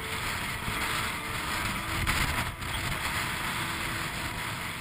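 Strong force 7 wind buffeting the microphone and water rushing and splashing past the hull of a Swan 48 sailing yacht heeled over under sail: a steady roar of wind and sea.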